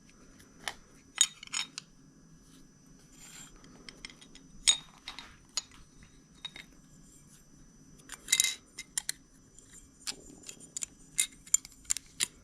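Small parts of a Snap-on work light being handled and fitted together by hand: scattered clicks and taps of hard plastic, with a short scraping rustle about eight seconds in.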